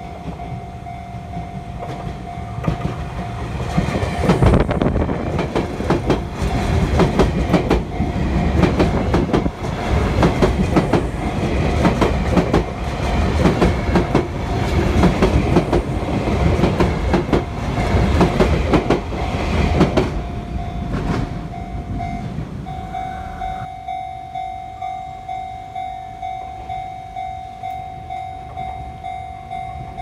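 A Japanese level-crossing warning bell rings steadily as a Sotetsu Line electric train runs over the crossing. The train passes from about four seconds in to about twenty seconds in, wheels clacking over the rail joints. After it has gone, the bell is heard clearly again, ringing in a regular beat.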